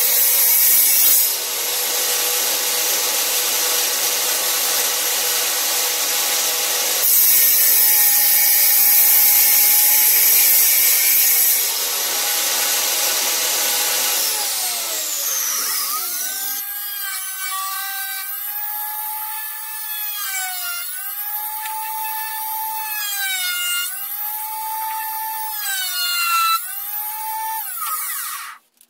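Benchtop table saw cutting a wooden board, louder while the blade is in the cut. Its motor then winds down, the pitch falling steadily. After that comes a pitched sound that rises and dips in a repeating pattern every few seconds, then cuts off near the end.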